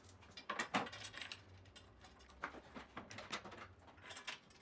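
Faint, scattered metallic clicks and taps of bolts, nuts and a steel arm rail being handled and fitted, a few sharp ticks a second apart.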